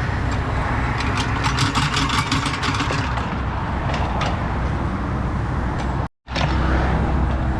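An engine running steadily, with a run of quick crackling clicks over it in the first few seconds and a brief cut to silence about six seconds in.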